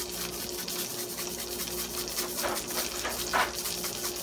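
Butter sizzling steadily as it melts in a hot cast iron skillet, with a low steady hum under it. Two brief louder noises break in during the second half.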